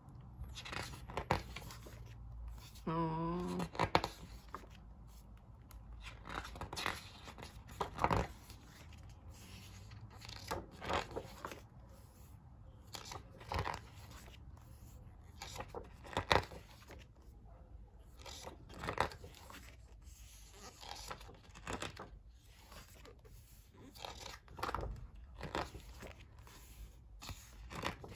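Paper pages of a thick photo book being turned by hand, one after another: short swishes and flaps of paper every second or two.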